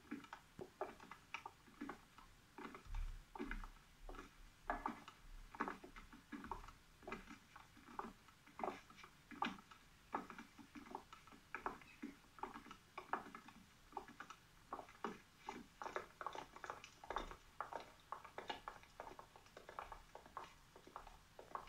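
Footsteps of several people walking, irregular steps about two a second, heard through a television speaker.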